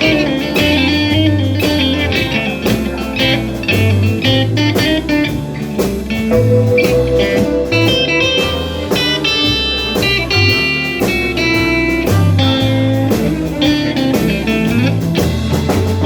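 Live blues band playing an instrumental passage: an electric guitar lead over bass notes and drums, no singing.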